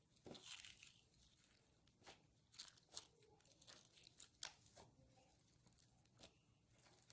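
Faint, irregular crackles and clicks from hands working homemade slime with confetti mixed into it.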